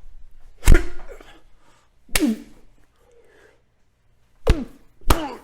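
Recorded punch sound effects: four hard, sharp hits, the last two about half a second apart.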